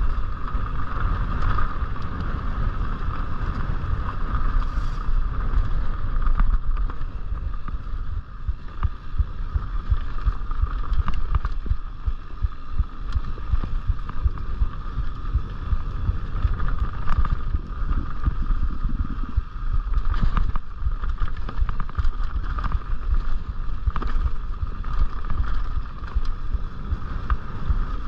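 Mountain bike rolling along a dirt singletrack, with wind buffeting the microphone and the rattle and knock of tyres and frame over the trail. A steady high buzz runs under it.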